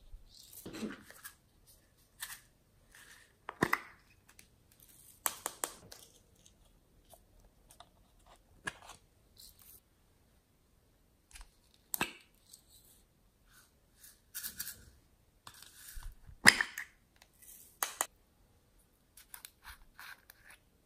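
Hands handling loose sequins and small plastic and rubber toys: scattered short clicks, taps and scratchy rustles, with the sharpest clicks a few seconds in, at about twelve seconds and at about sixteen and a half seconds.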